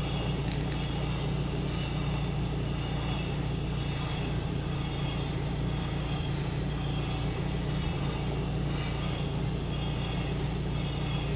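Steady low vehicle engine hum, with nose breathing on the microphone recurring about every two and a half seconds as short hisses.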